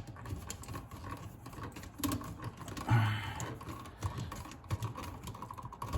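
Irregular light clicks and scrapes of hands handling stiff copper wires and a GFCI receptacle at an electrical box.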